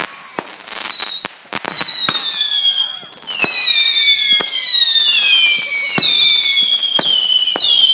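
Consumer fireworks going off: several high whistles sound at once, each sliding slowly down in pitch, over a run of sharp cracks and pops. It eases briefly about three seconds in, then comes back louder with more whistles.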